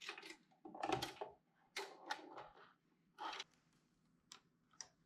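Faint handling sounds as an LED grow light and its driver are put back together: a few short knocks and rustles about a second apart, then two sharp clicks near the end.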